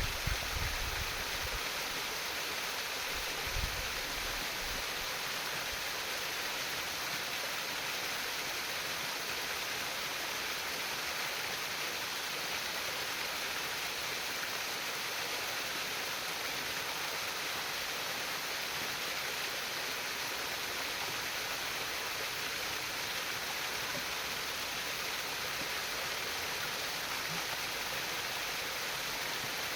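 A stream of running water, babbling steadily. There are a couple of brief low thumps in the first few seconds.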